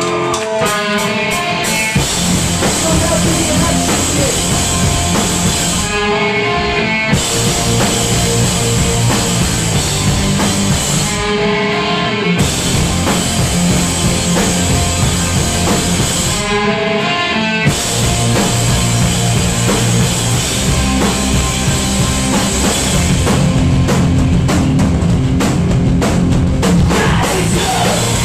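Punk band playing live: loud distorted electric guitars, bass and drum kit. Three times, about every five seconds, the drums and distortion drop out for about a second, leaving only a guitar line ringing.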